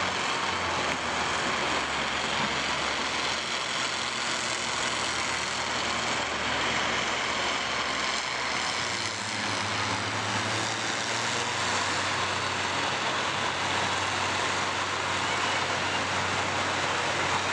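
Combine harvester engines running together in a dirt arena, a dense steady mechanical noise. A low engine note shifts in pitch about a second in and again about nine seconds in as the machines throttle.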